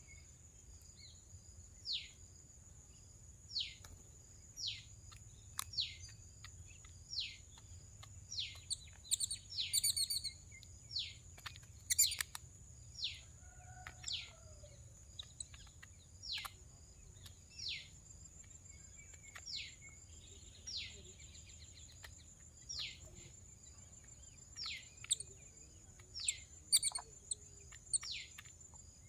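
A bird calling over and over, short notes that each sweep down in pitch, about once a second. A steady high-pitched whine runs underneath.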